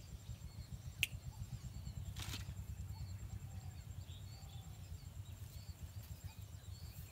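Quiet outdoor ambience with a steady low rumble. A single sharp click comes about a second in and a brief rustle about two seconds in, with faint short high chirps scattered throughout.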